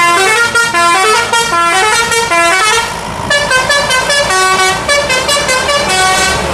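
Multi-tone 'telolet' musical air horn on a tour bus, playing a quick tune of stepped notes in two phrases with a short break about three seconds in.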